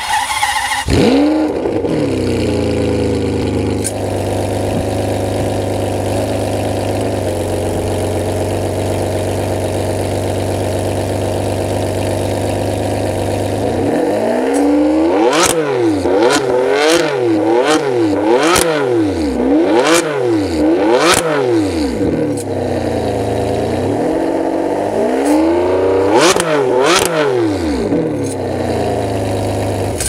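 Ferrari 599 GTB Fiorano's V12 through secondary-catalytic-converter bypass pipes, starting with a flare and settling to a fast idle that drops lower after several seconds. Around halfway it is revved in about seven quick throttle blips, idles again, then gets two more blips near the end.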